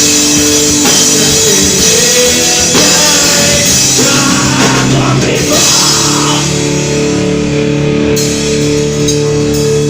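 Loud rock music: a band with a drum kit playing held, pitched chords.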